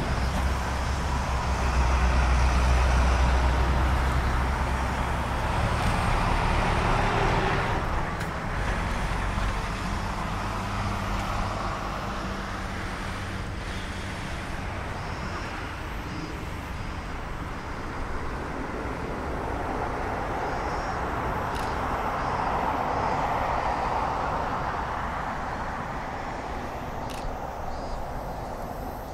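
Airbus A380-800's four jet engines at taxi power, a steady rumble and hiss. The rumble is heaviest over the first several seconds, and the sound swells again about two-thirds of the way through before easing off.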